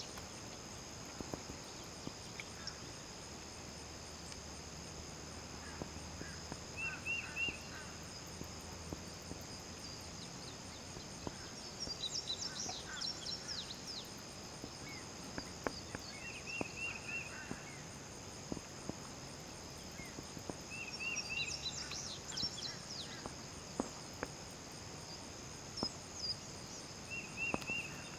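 Woodland ambience: a steady, high insect drone, with bird calls over it. A short three-note call comes four times, and there are two bursts of quicker, higher chirping.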